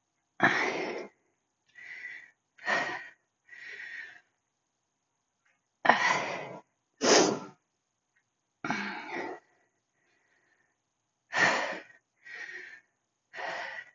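A woman breathing hard from exertion through a set of heavy lifting reps: about ten sharp, forceful breaths, some in quick pairs, with silent gaps between them.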